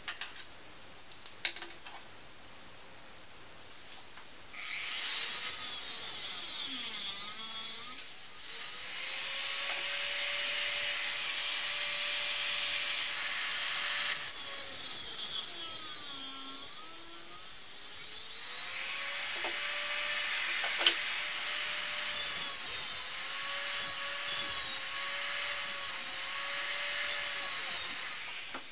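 A handheld rotary tool with a small cutting disc starts about four seconds in and runs with a high whine for over twenty seconds. Its pitch sags several times as the disc bites into a thin metal pin held in pliers. It stops just before the end.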